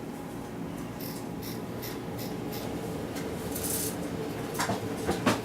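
Cyma M14 SOCOM battery-powered airsoft rifle firing single shots on semi-auto: a few sharp snaps, the loudest near the end, with fainter clicks earlier, over a steady low hum.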